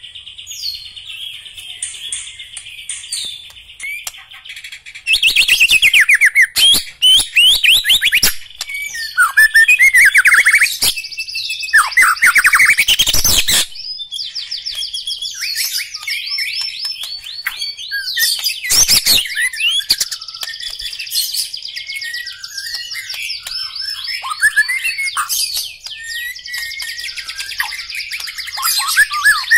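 White-rumped shama singing: loud, varied phrases of fast trills, sweeping whistles and harsh notes, loudest from about five to fourteen seconds in and again briefly near twenty. Softer, continuous twittering runs between the phrases.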